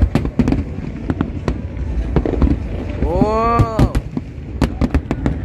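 Aerial fireworks display going off: an irregular, rapid string of sharp bangs, several a second, over a steady low rumble.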